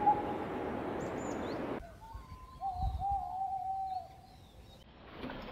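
Tawny owl hooting. The call opens with the end of a quick, quavering run of hoots over a steady rushing background. After a short gap comes one long hoot of just over a second, wavering at first and then held, with faint small-bird chirps behind it.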